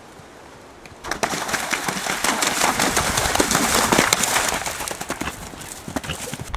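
Hooves of two galloping horses pounding close by: a rapid, loud clatter of hoofbeats that starts suddenly about a second in.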